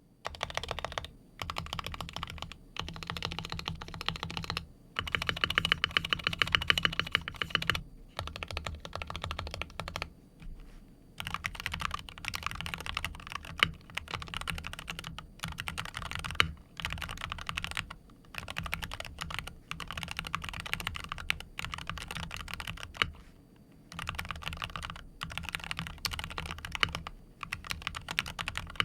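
Typing on a Wooting 60HE keyboard with Hall-effect magnetic switches, fully tuned and fitted in a full-aluminium Tofu60 Redux case: fast runs of keystrokes in bursts a second or few long, broken by short pauses.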